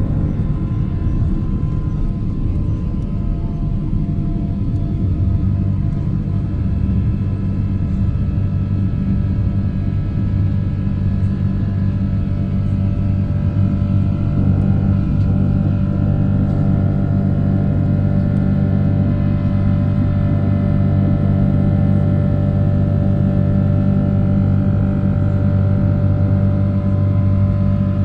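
Boeing 777-300's Rolls-Royce Trent engines at takeoff thrust, heard inside the cabin as a loud steady rumble. The rougher runway rumble of the takeoff roll gives way to a smoother engine drone with clearer steady tones once the jet lifts off, about halfway through.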